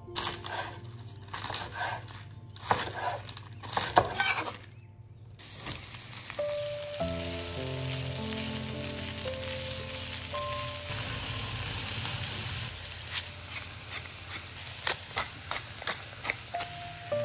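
Food frying in hot oil in a pan: a steady sizzle with short crackles and pops that come more often near the end. Before the sizzle settles in, a run of sharp scraping and tapping strokes comes in the first few seconds.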